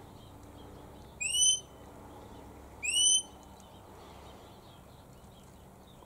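Australian king parrot calling: two short, high whistled notes, each rising in pitch, about a second and a half apart. It is one king parrot calling to another.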